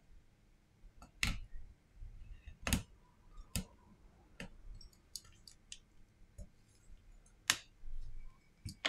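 Sharp, irregular clicks, about five loud ones with fainter ticks between, from a spudger being worked along the edge of a Samsung Galaxy A32 5G phone while its parts are pressed together.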